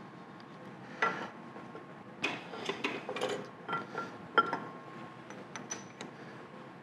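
Metal parts of a Monarch lathe's gear-shifter clinking and knocking as the shifter arm is worked into position inside the headstock: one knock about a second in, then a run of clicks and taps, the sharpest about four seconds in, and a few light ticks near the end.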